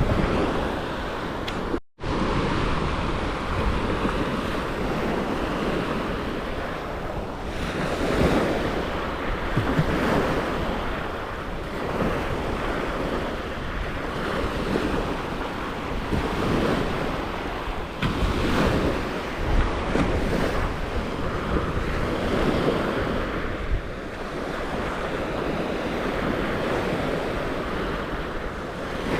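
Sea waves washing onto a beach, rising and falling every second or two, with wind buffeting the microphone. The sound drops out briefly about two seconds in.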